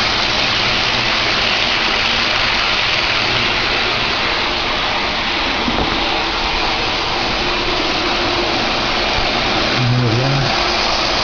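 Steady whirring rush of a small camera-carrying RC helicopter's rotors, held level with faint humming tones underneath.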